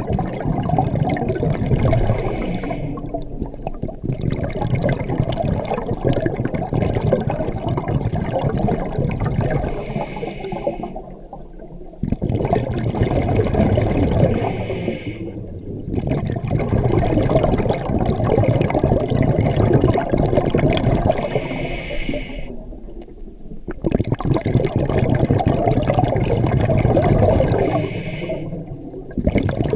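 Scuba diver breathing through a regulator, heard underwater: long bubbling exhalations alternating with short hissing inhalations, about five breaths.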